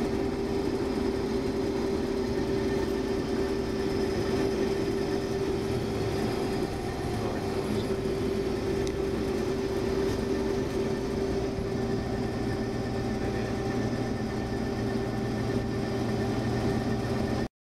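Combine harvester running steadily while harvesting barley, heard from inside the cab: a constant engine and threshing-machinery drone with a strong steady hum. It cuts off abruptly near the end.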